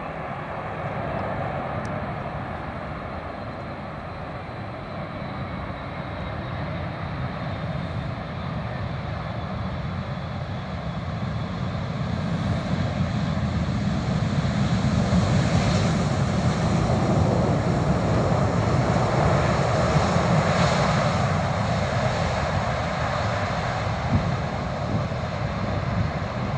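Boeing 777's twin jet engines rumbling and roaring through touchdown and landing rollout, with spoilers deployed. The roar grows louder about halfway through and stays loud.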